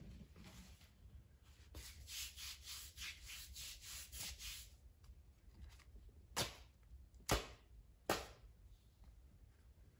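Hands briskly rubbing a paper waxing strip down over sugar paste on a bare leg, about three strokes a second, then three short sharp rips as the strip is jerked back off the skin, the middle one loudest.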